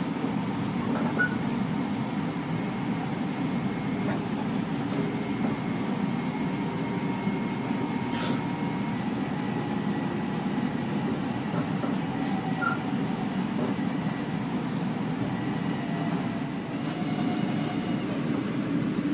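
Steady low rumble of a Long Island Rail Road commuter train running, heard from inside the passenger car, with a faint high whine held steady and a single click about eight seconds in.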